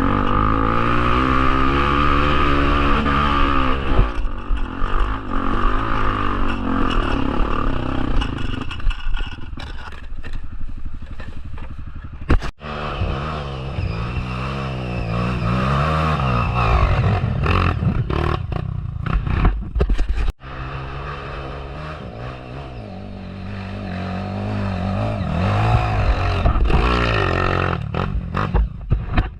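Off-road motorcycle engine running and revving, its pitch rising and falling with the throttle, with occasional knocks. The sound breaks off abruptly twice, about 12 and 20 seconds in.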